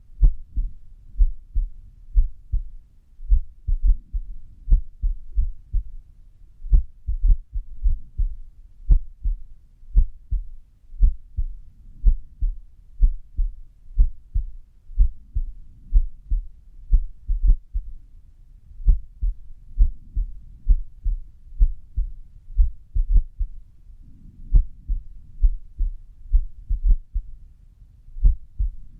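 Human heart sounds at rest: low lub-dub thumps, about one to two a second, beating in an irregular rhythm, the sign of an arrhythmia.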